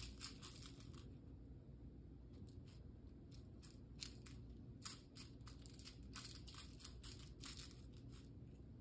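Faint, irregular scratchy rustles in short clusters: a cat rolling and wriggling on its back on a rug, its fur and claws rubbing the carpet.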